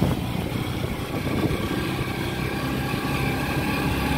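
Motorcycle engine running steadily while riding, a low hum under an even rush of wind and road noise.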